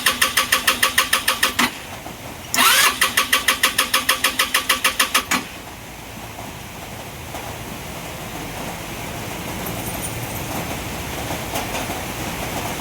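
Motorcycle electric starter cranking the engine in two attempts, a fast rhythmic churn of about six beats a second, the first ending under two seconds in and the second lasting about three seconds: a hard-starting engine. After that, a quieter steady sound continues.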